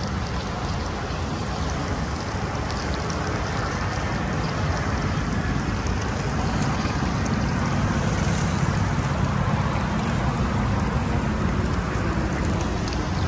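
Batter-coated green chillies (mirchi bhajji) deep-frying in a large kadai of hot oil: a steady, crackling sizzle of bubbling oil. A steady low rumble runs underneath.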